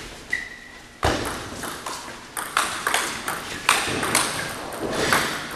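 Table tennis rally: the ball clicks sharply off bats and table in quick alternation, about two to three hits a second, with a hall echo. A short squeak is heard just before the rally begins.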